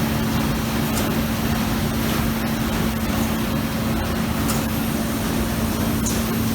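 Trumpf TruLaser 2030 CNC laser cutting machine and its equipment running: a steady hum with one constant low tone over a broad hiss, with a few faint ticks.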